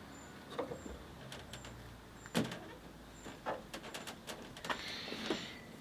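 Scattered light clicks and knocks, with a short scrape near the end, as the Hilux tailgate and its gas-strut damper are handled to fit the damper's end onto the mounting pin.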